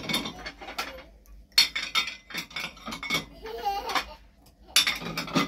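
Dishes and plates clattering and clinking as they are set into a dishwasher's racks, in several separate bursts, the loudest near the end.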